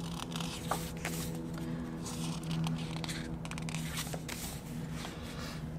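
Pages of an album photobook being turned by hand: several short paper rustles and slides. Under them, quiet background music holds a steady chord.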